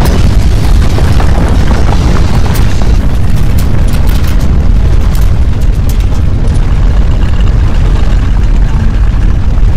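Loud, continuous deep rumble of earthquake shaking, with scattered sharp rattles and clatters through the middle.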